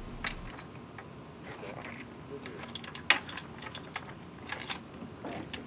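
Scattered light metal clicks and knocks as the connector plate and pin joining two floating oil-skimmer panels are fitted by hand, the sharpest about three seconds in.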